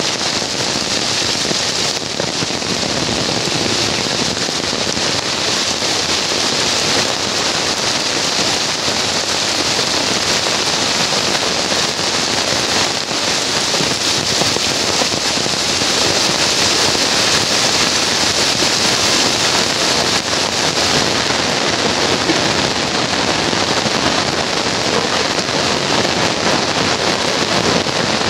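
Heavy tropical rain pouring down steadily, a dense hiss of drops striking the concrete road and leaves.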